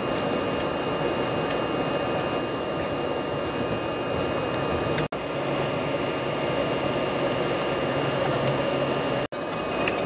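Steady running noise of a passenger train heard from inside the carriage, a rumble with a low hum and a faint high whine. It drops out for an instant twice, about five and nine seconds in.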